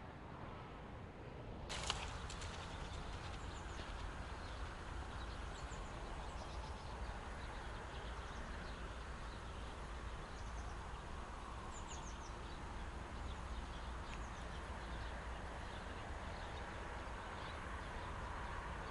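Pond-side outdoor ambience: small birds chirping on and off over a steady low rumble, with one sharp click about two seconds in.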